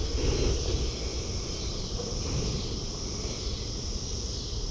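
Wind rumbling on the microphone under a steady, even insect chorus of crickets, with a brief rustle near the start.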